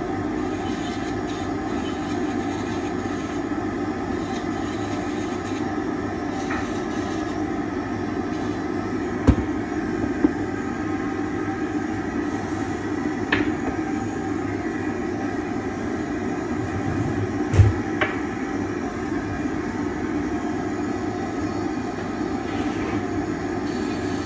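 Dental lab dust extractor running steadily at the trimming box while zirconia is ground with a handpiece, with a few sharp knocks as the milled arch and tools are handled.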